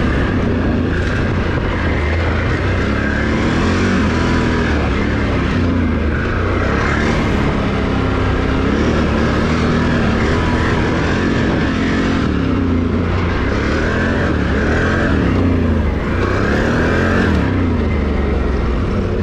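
Can-Am Renegade ATV's V-twin engine running under way, its revs rising and falling again and again as the throttle is opened and eased off.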